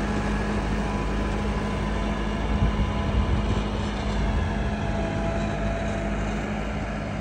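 Tractor diesel engine running steadily, a constant low hum.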